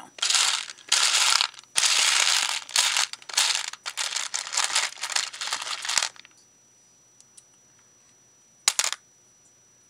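Loose beads clattering as a hand rummages through them in a plastic storage box, in bursts for about six seconds. Then it goes quiet apart from one sharp click near the end.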